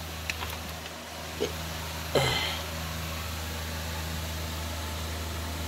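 A steady low background hum, with a few faint clicks and a short rustle about two seconds in as the chainsaw and camera are handled. The engine is not running.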